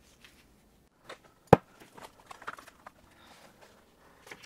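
Workshop handling noise: one sharp knock about one and a half seconds in, among lighter clicks and clatter. A faint low hum stops about a second in.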